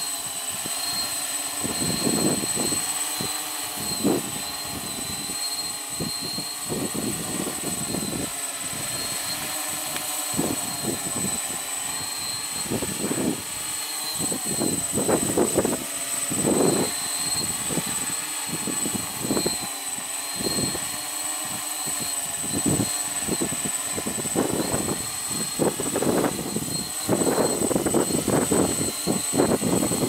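Heavy X8 coaxial multirotor's electric motors and propellers humming as it hovers, holding its position in loiter mode, the pitch wavering slowly as the motors correct against the wind. Irregular wind gusts buffet the microphone, heaviest near the end.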